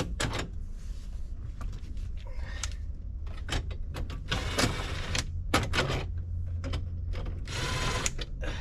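Plastic dash trim being handled and pushed into place around a truck's steering column: scattered clicks and knocks, with two stretches of scraping about halfway through and near the end, over a steady low hum.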